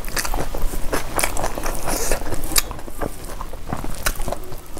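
A person chewing a mouthful of food, a dense run of irregular wet clicks and crackles, along with fingers mixing rice with curry.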